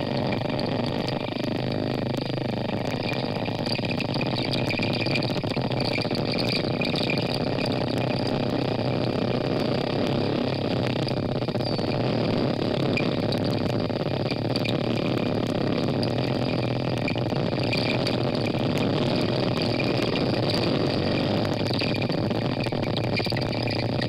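Underwater recording of wild bottlenose dolphins: scattered trains of fine clicks over a steady, rumbling background noise.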